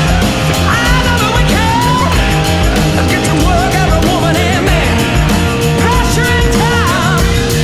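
Rock song with singing over a steady beat of drums and guitar.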